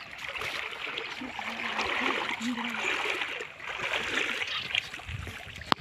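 River water splashing and rushing in two long swells as a large hooked wallago catfish thrashes against a handline. A single sharp click comes near the end.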